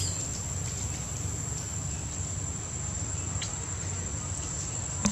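Insects droning steadily in one high thin tone over a low rumble, with a faint tick about three and a half seconds in and a short knock at the very end.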